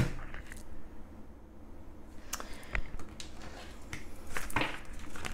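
Tarot cards being handled: a scattering of light, irregular clicks and taps of cards, a little busier near the end.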